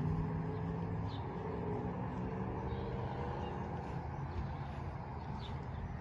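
A vehicle engine hum, its pitch drifting slowly lower as it fades over the first few seconds, with a few faint bird chirps.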